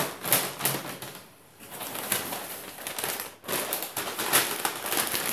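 A large paper instruction sheet rustling and crinkling in irregular bursts as it is handled and folded, with brief lulls in between.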